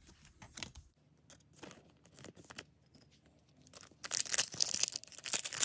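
A Disney Lorcana booster pack's foil wrapper being ripped open by hand: a loud tearing crinkle starting about four seconds in. Before it, faint rustles and taps of trading cards being handled.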